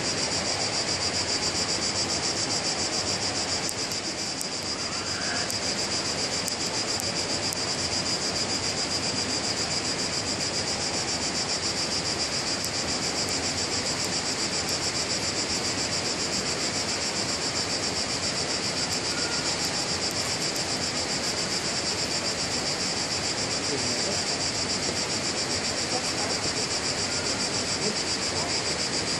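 A steady, dense chorus of cicadas buzzing high and continuously, over the even rush of flowing river water.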